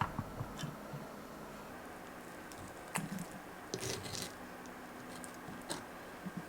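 Sticky tteokbokki simmering in a thick red-pepper sauce and being stirred in the pan: a steady low hiss with a few wet squishes and light clicks of the utensil against the pan.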